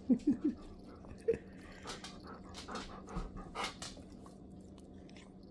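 Chihuahua puppy eating wet dog food from a stainless steel bowl: quick sharp clicks of chewing and licking from about two seconds in, with a few brief dog noises in the first second.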